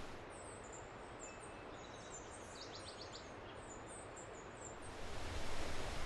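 Small birds chirping in short high-pitched calls, with a brief rapid trill in the middle, over a soft background rush. About five seconds in, the loud rushing of a stream cascading over rocks comes back.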